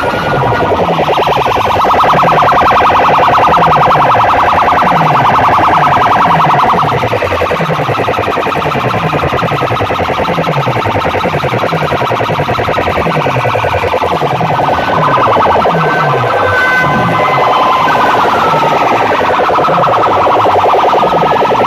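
Loud sound-system playback: a wailing, siren-like effect over a low bass sweep that falls in pitch and repeats at an even pace.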